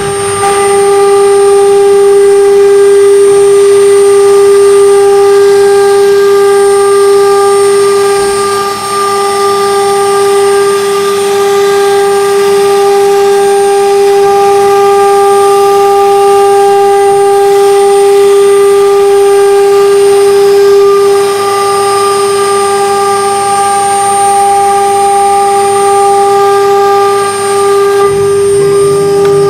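High-speed electric spindle of a multi-spindle CNC wood router whining steadily at one high pitch while its bit routes lettering into a wooden board, with cutting noise underneath; the whine dips briefly about nine seconds in.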